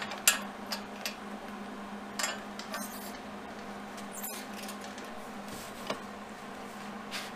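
Scattered light clicks and taps as a gloved hand handles the steel guard around a fresh tack weld, the sharpest just after the start, over a steady low hum.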